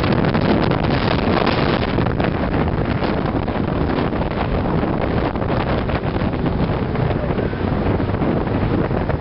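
Wind rushing and buffeting over the microphone of a camera in a moving car, over the steady noise of the car's engine and tyres on the road.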